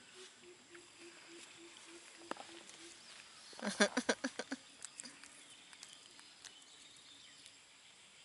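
A brief burst of rapid, chattering animal calls, about ten pulses in a second, coming about three and a half seconds in. Before it a faint low note repeats about four times a second.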